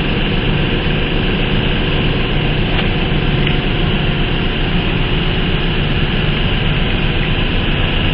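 A steady mechanical running noise with a low hum, unbroken and even in level throughout.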